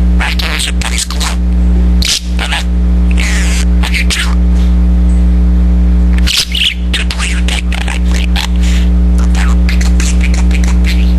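Budgerigar chattering in quick, squeaky chirps and warbles, the fast run-together chatter of a talking budgie, with short pauses around 2 and 6 seconds in. A steady low hum sits underneath throughout.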